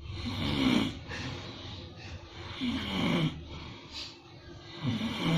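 A person snoring in sleep: three snores, each a bit under a second long, about two and a half seconds apart.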